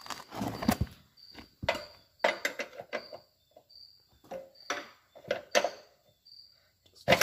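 A metal wrench clicking and knocking against the stuck rear shock mounting bolt as it is worked at. The knocks come irregularly, a dozen or so short sharp ones.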